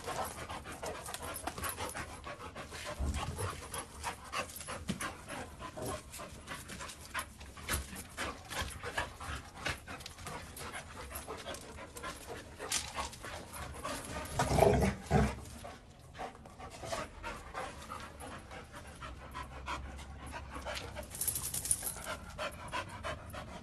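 Dogs panting hard during rough play-wrestling, with many short scuffing clicks as they tussle. A louder burst stands out a little past the middle.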